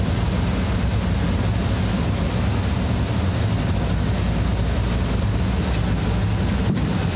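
A steady low mechanical drone with an even hiss over it, unbroken throughout.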